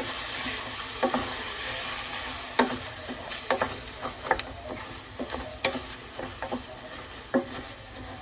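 Mexican red rice frying with tomato in a stainless steel pot, sizzling while a wooden spoon stirs and scrapes through it, with scattered knocks of the spoon against the pot. The sizzle is strongest at first and eases off.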